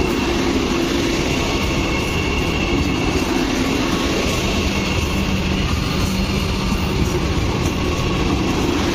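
Vande Bharat Express electric trainset running past, coaches rolling by with a steady noise from wheels and underfloor equipment and a faint steady whine over it.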